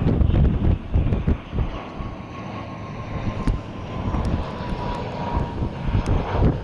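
ATR 72 twin-turboprop airliner flying past on approach, its engines and propellers giving a steady drone with a faint whine that drops slightly in pitch. Wind buffets the microphone in gusts, loudest at the start and again near the end.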